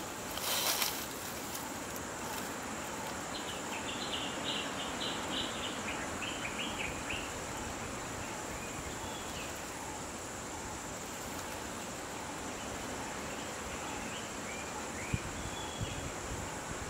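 Steady high-pitched insect buzz over outdoor ambience, with a bird calling a quick run of short repeated notes a few seconds in. A brief rustle comes about half a second in, and two sharp clicks come near the end.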